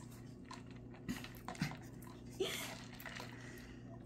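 Faint small clicks and taps of a plastic shot straw being handled in a plastic cup, over a low steady hum, with a short breathy rustle about two and a half seconds in.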